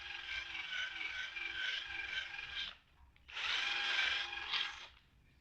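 Handheld power tool running at a steady pitch in two bursts, each cut off when the trigger is released, with a short pause between them.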